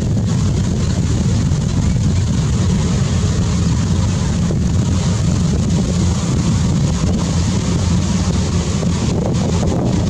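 Steady, loud low rumbling noise with no bird calls in it.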